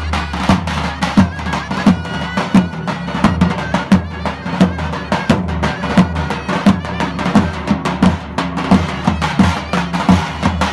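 Live davul and zurna folk music for a halay dance. Two davul bass drums play a steady beat, with deep strikes about every two-thirds of a second and quicker, lighter taps between them. A shrill zurna plays the melody over the drums.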